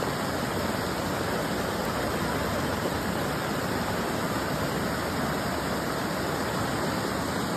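Steady loud rushing of floodwater across a street, with a car wading through it and pushing a wave of water.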